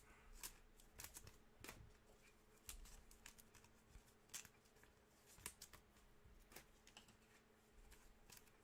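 Faint, irregular clicks and light rustling of 2021 Panini Mosaic football trading cards being handled and flipped through by hand, over a faint steady low hum.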